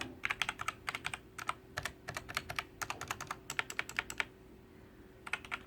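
Keys on the numpad of a Royal Kludge RK Sink104Pro mechanical keyboard with red switches being pressed one after another in a steady run of clicks, pausing for about a second near the end before a few more keystrokes.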